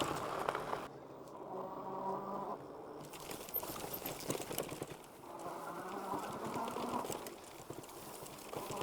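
Dual hub motors of a Philodo H8 all-wheel-drive e-bike whining in three short buzzing bursts, each about a second long, over rolling tyre and wind noise.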